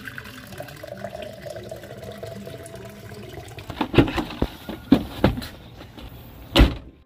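Coffee poured from a carafe into a travel mug, a steady liquid trickle with a faint filling tone. From about four seconds in come several sharp knocks and thumps as gear is loaded into a car's open hatchback, the loudest shortly before the end.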